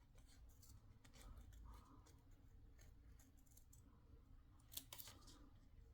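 Faint, scattered snips of scissors cutting out a small shape, with one sharper click a little before the end.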